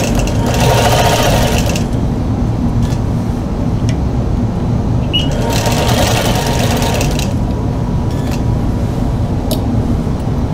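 Longarm quilting machine stitching along an acrylic arc ruler in stitch-regulated mode at 12 stitches per inch, running in two spells of about two seconds each, over a steady low hum. A few light clicks come between the spells.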